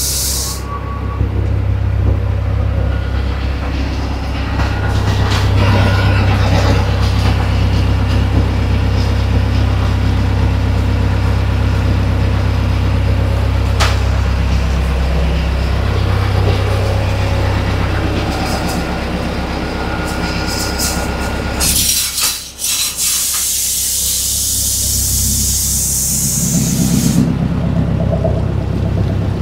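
Boat engine running with a steady low drone. About three quarters of the way through, the drone gives way to a loud rushing hiss for a few seconds, and then the low engine sound comes back.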